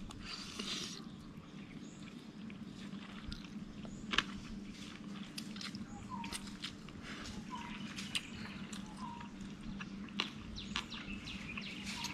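A man eating wide rolled rice noodles: a slurp near the start, then scattered light clicks of fork and spoon on the plate. A steady low hum runs underneath, and a bird chirps faintly a few times.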